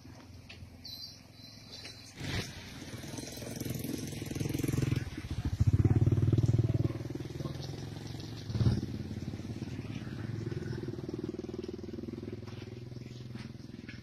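A motorcycle engine running as it passes close by. It grows louder to a peak about six seconds in, then drops back to a steady hum, with a short knock about two seconds in.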